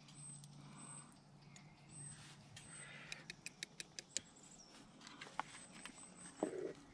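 Plastic spoon stirring in a small metal bowl of egg and cheese, with a quick run of light clicks a few seconds in as it taps the bowl, and a soft knock near the end.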